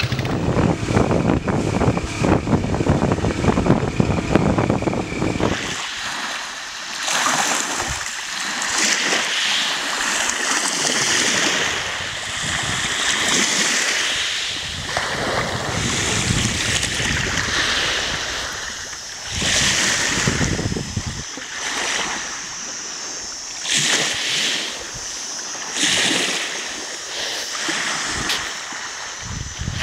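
A loud low rumble for the first five seconds or so, then waves washing in on open water, rising and falling every few seconds, with wind hiss.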